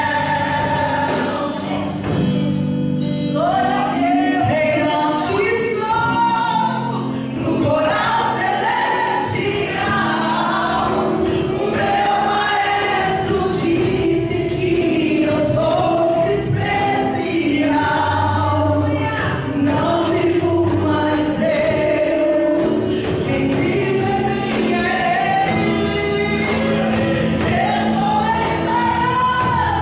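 Gospel vocal group singing a Portuguese worship song live into microphones, several voices together over instrumental accompaniment.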